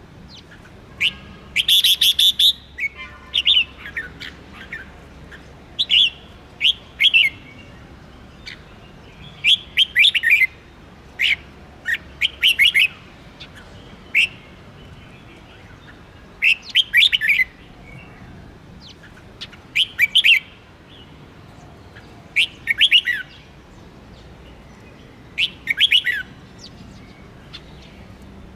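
Red-whiskered bulbul singing short, quick phrases of sweeping notes, repeated about every two to three seconds.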